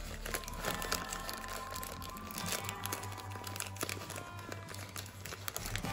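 Origami paper crinkling and crackling as it is folded down and creased by hand, with background music.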